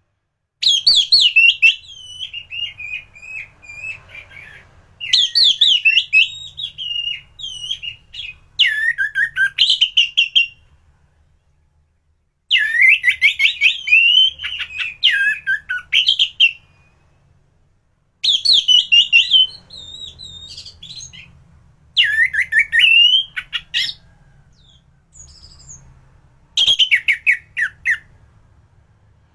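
Orange-headed thrush (anis merah) in full song: about seven bursts of rapid, varied whistled and chattering notes, each a few seconds long, separated by short pauses.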